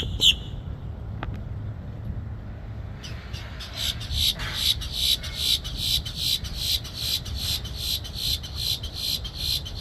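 American crows calling: one series of short calls breaks off just after the start. After a pause of about three seconds, with a single click about a second in, a new rapid run of short, high calls starts up at about four a second and keeps going.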